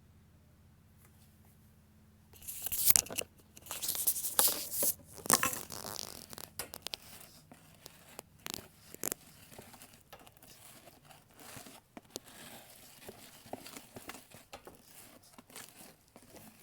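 Near silence for about two seconds, then clear glue and glitter slime being stirred in a bowl with activator: irregular sticky scraping and crackling strokes, loudest for the first few seconds and lighter after.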